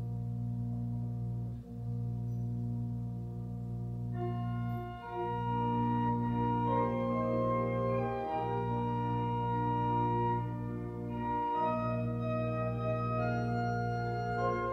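Organ music: slow, held chords over a sustained low bass, with higher melody notes joining about four seconds in.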